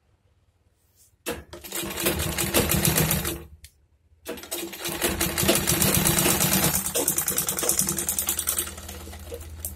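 Usha sewing machine stitching a zip onto tracksuit fabric: a short run of rapid, even stitching, a brief stop, then a longer run that gets quieter near the end.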